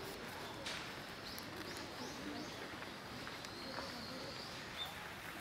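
Small birds calling in the trees: several short, high chirps in the first half and one longer, drawn-out high call midway, over a low murmur of people on the path.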